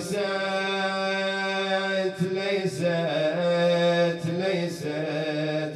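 A man's voice chanting a mournful Arabic elegy (nai), drawing out long held notes that waver in pitch, with a short break for breath about two seconds in.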